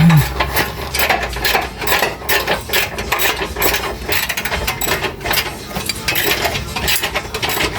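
Hand ratchet wrench clicking rapidly and irregularly as bolts are run in on a car's steering rack mounting, with a brief falling squeak right at the start.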